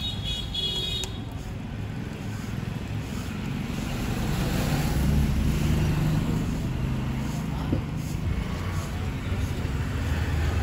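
Street traffic noise: a steady low vehicle rumble that swells about four to seven seconds in, with a short high-pitched beeping at the very start.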